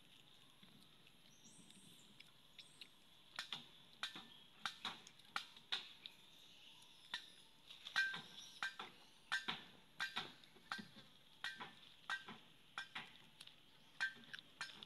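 Irregular sharp clicks and cracks, about two a second, starting about three seconds in, over a faint steady high insect hum.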